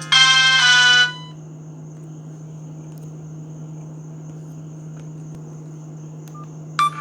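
A Sony Ericsson ringtone melody played through the small loudspeaker of a Verykool S135 phone, cutting off about a second in. A low steady hum with a faint high whine follows, until the next ringtone starts abruptly near the end.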